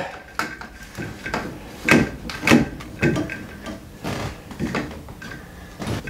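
Plastic handling noises: a clear plastic drain tube being pushed down into a white plastic drain pipe. It makes an irregular series of knocks and clicks, the loudest about two seconds in.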